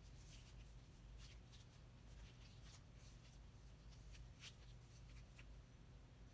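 Near silence with a low steady hum and several faint, brief rustles of a cloth tape measure being wrapped around the hips and handled.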